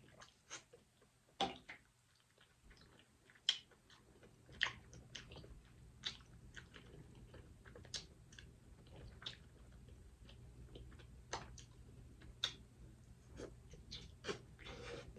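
Close-miked chewing and eating: soft, irregular mouth clicks and smacks. A faint low hum sits under them from about four seconds in.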